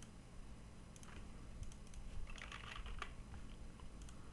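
Faint computer keyboard typing: a few separate key taps, then a quick run of keystrokes about two and a half seconds in as a short word is typed.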